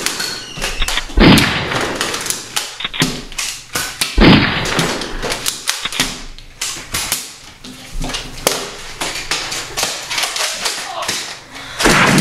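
Nerf foam-dart blasters being fired: two loud shots in the first few seconds, then scattered clicks, taps and thuds.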